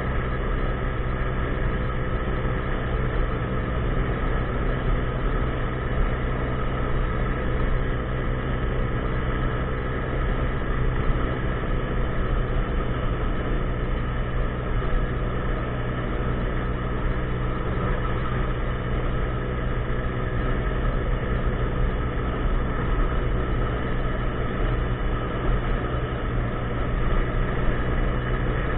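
50cc scooter's small single-cylinder engine running at a steady, unchanging pitch.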